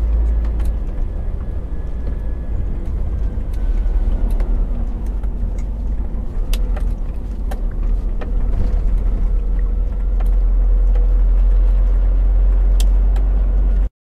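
Scania truck driving along, its engine and road noise a steady deep rumble with scattered light clicks; it cuts off abruptly near the end.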